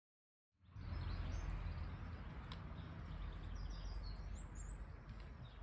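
Outdoor background: a steady low rumble with birds chirping now and then, starting about half a second in after silence.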